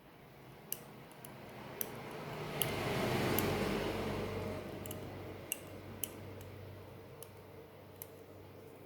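Light scraping and small clicks of a thin metal tool working a stuck SIM card along the tablet's SIM card slot. The scrape swells through the middle of the stretch and then fades, with scattered sharp ticks.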